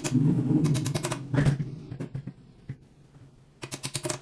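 Light metallic clicking and rattling in short runs as folding-bicycle hinge parts are handled and fitted onto the frame. A quick run of clicks comes near the end.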